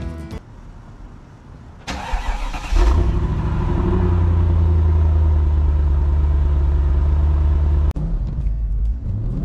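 Mercedes-Benz S55 AMG's supercharged 5.4-litre V8 cranked by the starter for about a second, catching with a brief rise in revs that settles into a steady idle at the exhaust tips. Near the end the sound changes abruptly to the engine running as the car drives off.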